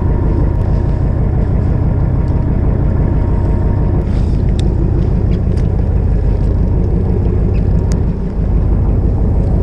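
Fishing boat's engine running steadily under way, a constant low rumble with wind and water noise. A few faint clicks come through near the middle and near the end.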